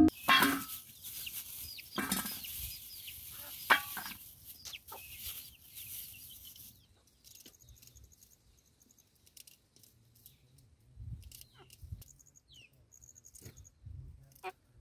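Domestic chicken clucking, with scattered small clicks of a knife cutting over a metal pot. A steady hiss runs underneath and stops suddenly about seven seconds in.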